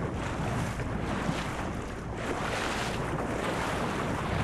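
Steady rush of sea water and surf splashing around a humpback whale's back as it swims at the surface, with wind buffeting the microphone.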